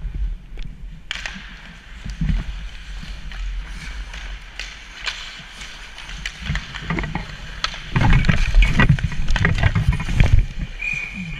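Ice hockey play heard from the goal crease: skate blades scraping the ice, sticks and puck clacking, and the goalie's gear rustling. The clatter is loudest and busiest from about eight to ten seconds in, as the puck ends up loose at the goalie's feet, and a brief high tone sounds near the end.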